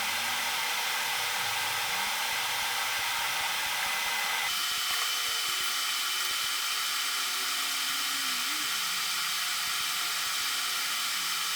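Welding arc hissing steadily while a stainless steel tube is welded to a carbon-steel flange with 309L filler; its tone shifts about four and a half seconds in.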